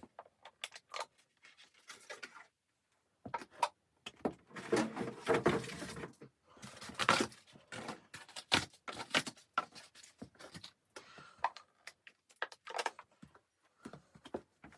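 Irregular knocks, clicks and rustling of objects being handled in a small room, with a denser stretch of rustling about four to six seconds in.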